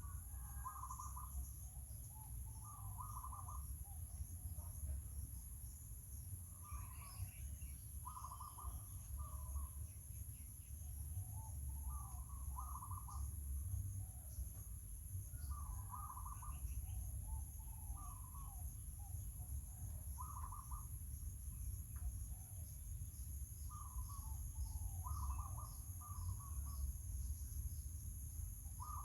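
Short animal calls, one or two quick phrases every couple of seconds, over a steady high-pitched drone and a low rumble.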